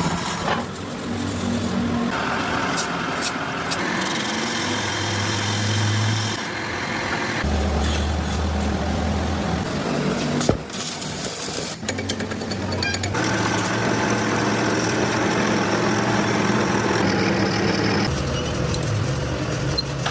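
Workshop machinery running steadily with a hum and noise, in a string of short segments that change abruptly every few seconds.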